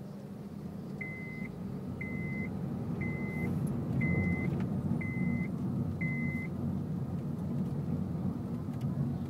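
Inside a 2006 Honda Civic's cabin: engine and road rumble, growing louder about four seconds in as the car speeds up slowly in traffic. Six short electronic beeps sound about once a second, each about half a second long.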